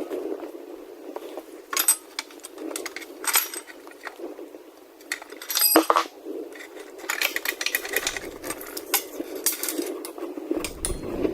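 Metal hand tools and parts clinking and knocking: an irregular run of sharp clinks, with one louder strike about six seconds in.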